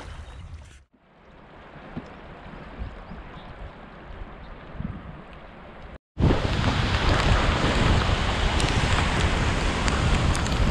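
Whitewater rapids rushing around a raft, a loud, steady roar of churning water that comes in suddenly about six seconds in after a quieter stretch of steady noise, with scattered sharp ticks over it.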